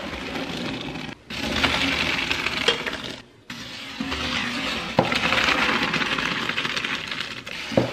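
Boiled pasta and its hot cooking water poured from a pot into a colander in a stainless steel sink: a splashing rush of water with small clatters, broken by two brief pauses.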